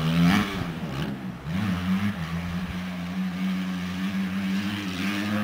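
Motocross dirt bike engine running on the track. Its pitch dips twice in the first two seconds as the throttle comes off, then holds steady.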